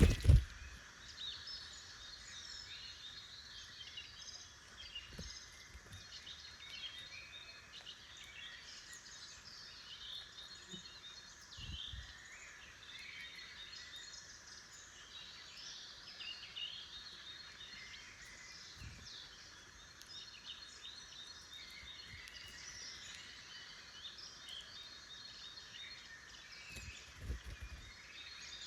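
Woodland songbirds singing and calling, many overlapping chirps and warbles at once, with a few soft low thumps scattered through, the loudest right at the start.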